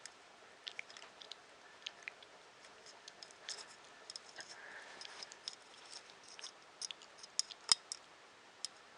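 Irregular small clicks and taps of tiny screws and plastic 3D-printer parts being handled and fitted by hand, with one sharper click near the end.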